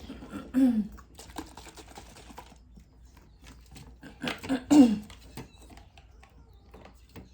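Light clicks and rustling of handling, with two short cries that fall in pitch: a brief one about half a second in and a louder one nearly five seconds in.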